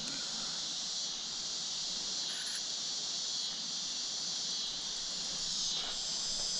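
Steady high-pitched chorus of crickets and other insects.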